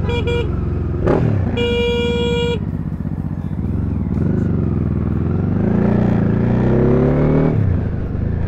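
JS700 motorcycle engine running in traffic, its pitch rising steadily for about three seconds in the second half as it accelerates, then dropping off near the end. Near the start a vehicle horn gives a short beep, then a longer one of about a second.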